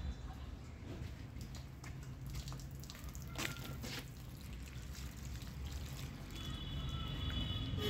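Water trickling in a thin stream from the drainage hole of a clay pot held above a potted plant, dripping and splashing onto the leaves and soil.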